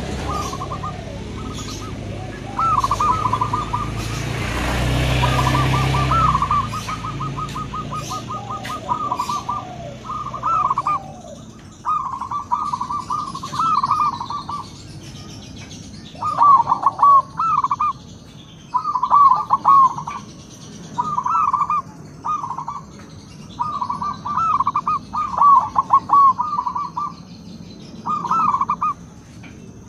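Zebra doves (perkutut) cooing in short bursts of rapid, bubbling notes, repeated every second or two. A second, lower-pitched dove answers during the first ten seconds or so. A low rumble dies away in the first seven seconds.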